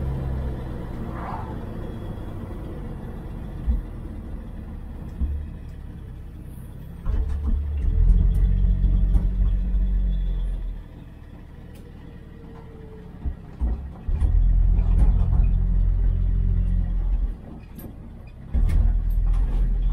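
1978 Chevy Nova's straight-six engine and exhaust running while the car is driven, a low rumble that grows much louder in three stretches of a few seconds each and drops back between them.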